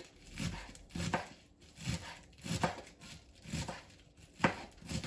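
Kitchen knife chopping cabbage on a plastic cutting board: a run of crisp chops at roughly two a second, unevenly spaced, with one louder chop near the end.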